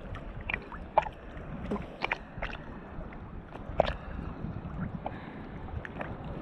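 Choppy sea water lapping and splashing against a camera held right at the surface, a steady watery wash broken by irregular sharp splashes.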